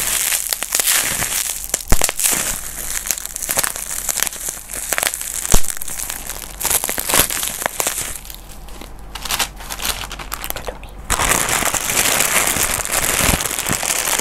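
A bag being scrunched and crumpled in the hands close to a clip-on lavalier microphone: a dense run of crinkles and crackles with sharp snaps, easing off about two-thirds through before picking up again, louder, near the end.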